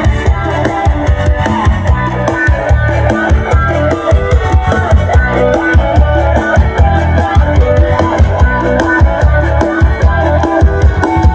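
Loud music with guitar and a heavy bass beat played through a stack of four homemade OD15 subwoofer cabinets topped by a mid-high speaker box, demonstrating the system's sound power.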